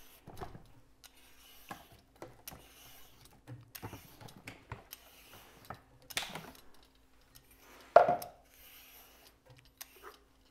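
Scattered plastic clicks and knocks as a Vitamix food processor bowl and lid are handled and twisted onto the blender base to lock them in place, with one louder clunk about eight seconds in. Soft scraping strokes of a hand peeler on a sweet potato come between them.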